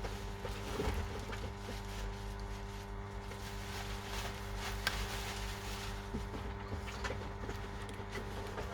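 A steady low hum with several pitches stacked together, with scattered light clicks and taps over it.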